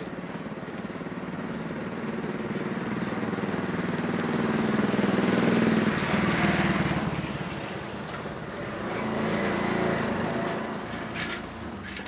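Motorcycle engines passing by, the sound swelling to its loudest about halfway through and again, a little less, a few seconds later.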